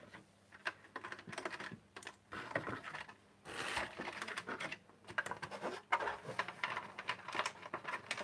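Typing on a keyboard: quick, irregular key clicks in bursts, with short pauses between them.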